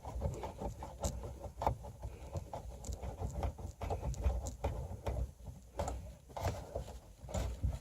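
Irregular small clicks, taps and knocks of hands working a speaker and its mounting screws into a car's rear parcel shelf, with low handling rumble.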